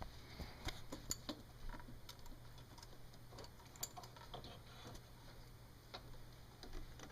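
Faint, irregular small clicks and taps of handling, over a steady low hum.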